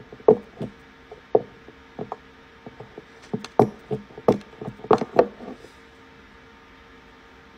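Clicking as a refillable perfume atomizer is pumped down onto a perfume bottle's spray nozzle again and again to fill it. The clicks come in an irregular run for about five seconds, then stop.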